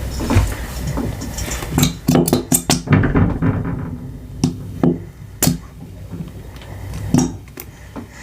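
Slime or thinking putty being worked by hand, with irregular sharp, sticky pops and clicks, a quick run of them a couple of seconds in and single ones after.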